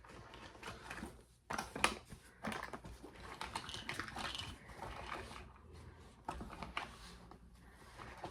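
Irregular small clicks and knocks of toiletry items being handled and set down.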